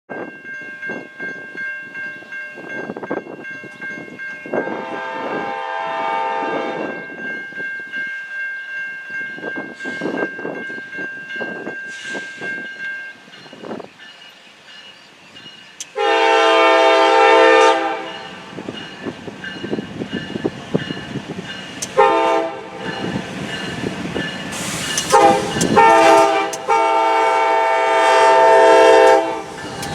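Diesel locomotive air horn on a Norfolk Southern freight, with the locomotives rumbling underneath. After one fainter blast, the horn sounds loudly four times, long, long, short, long: the standard signal for approaching a grade crossing.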